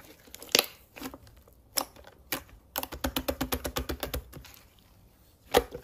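Quick small clicks: a few single clicks, then a fast even run of about ten a second lasting a second and a half, and one more click near the end.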